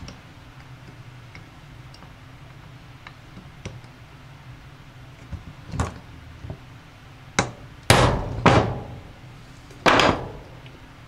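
Ball-peen hammer striking a steel punch set against a seized wheel bearing in an aluminium hub carrier: a few light taps, then several sharp, loud metal blows in the second half, the bearing not budging.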